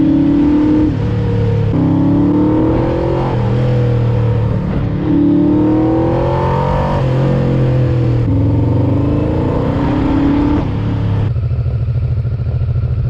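Yamaha VMAX 1200's V4 engine accelerating hard through the gears, its pitch rising and then dropping back at each upshift, several times over. About 11 seconds in it settles to a low, even beat, as when running slowly or at idle.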